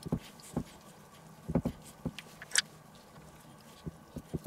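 A metal spoon spreading and pressing sticky meat paste into a bacon-lined cast-iron loaf pan: soft, irregular clicks and taps, about nine scattered through the few seconds.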